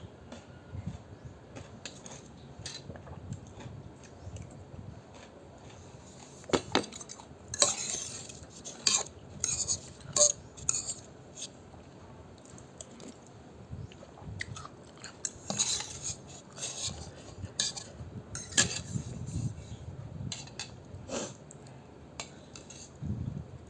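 Utensils clinking and knocking against a bowl of noodle soup while it is eaten: irregular sharp clinks, a few ringing briefly, thickest through the middle of the stretch.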